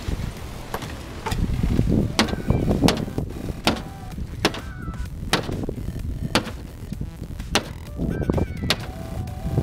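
Claw hammer striking the wooden wall panels and roof edge of a backyard playhouse being torn down: a steady run of sharp blows, a little more than one a second.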